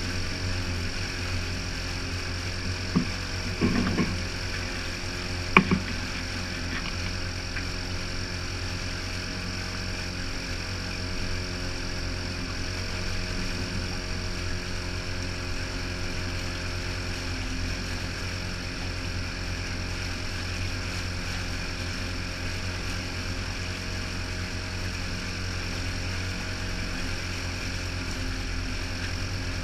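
Boat's outboard motor running at a steady speed under load while towing a jet ski, with water churning in the wake. A few sharp knocks in the first six seconds.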